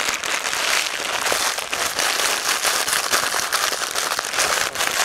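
A bag of Sabritones puffed wheat snacks crinkling and crackling as the snacks are crushed inside it by hand, a steady run of small crackles.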